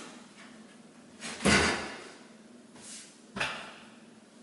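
Two brief knocks of handling noise, one about a second and a half in and a sharper one about three and a half seconds in, with a faint sound just before the second.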